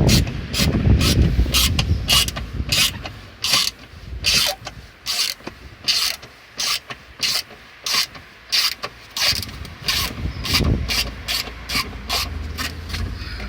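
Ratchet wrench clicking in short, irregular runs of strokes as bolts are worked loose.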